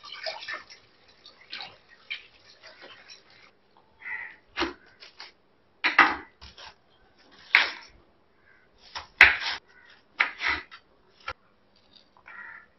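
Tap water running over a bunch of spring onions being rinsed, stopping about three seconds in. Then a knife chopping spring onions on a wooden cutting board: a string of sharp, irregular knocks.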